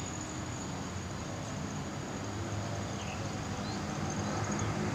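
Steady outdoor ambience: a thin, high insect trill over low rustling and movement noise.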